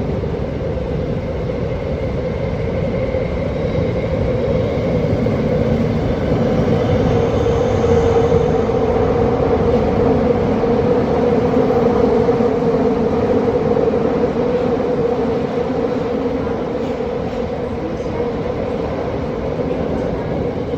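Hanzomon Line subway train running, a steady rumble of wheels and motors. It swells a little partway through and eases slightly toward the end.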